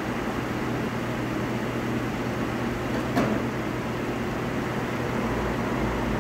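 Steady mechanical hum and whir of tyre-shop machinery, with a single sharp click about three seconds in and a deeper low rumble coming in near the end.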